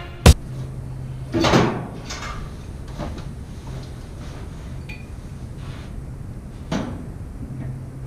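Handling noise from work among steam-boiler piping: a few separate knocks and clunks, the loudest about a second and a half in and another near the end, over a faint low hum that comes and goes.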